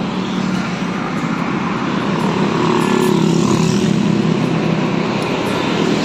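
An engine running with a steady low hum over a rushing noise, growing gradually louder.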